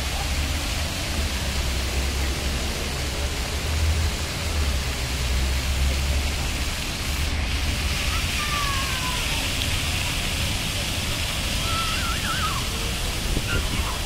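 Rows of plaza floor-fountain water jets spraying up and splashing back onto wet paving: a steady hiss of falling water over a low, even rumble.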